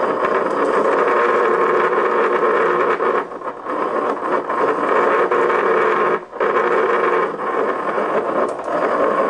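Microwave oven transformer buzzing loudly under load, its secondary grounded through a hand-held metal rod while it drives an HHO electrolysis cell. The buzz drops out briefly twice, about three seconds in and again about six seconds in.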